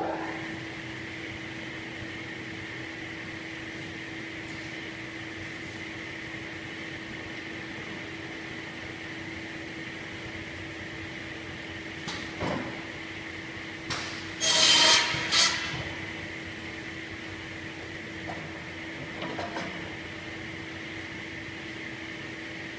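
Cross-cut saw running steadily with a constant hum. About halfway through, the blade cuts across a teak board in one loud burst lasting about a second and a half. A few lighter knocks come before and after as the board is moved on the rollers.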